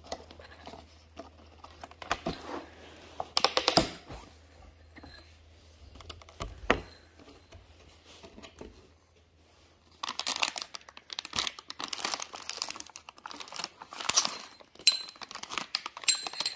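Plastic packaging of clip-on handlebar parts, a clear plastic case and plastic bags, being handled and crinkled: scattered crackles and clicks at first, then denser, continuous crinkling for the last third.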